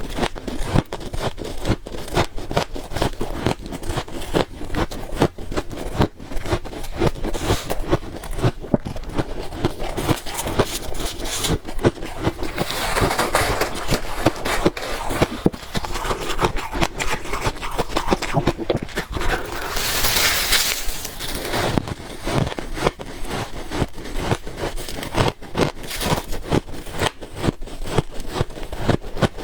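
Freezer ice being bitten and chewed: a continuous run of sharp, crispy crunches and cracks. There are two longer grinding stretches, one about twelve seconds in and one around twenty seconds in.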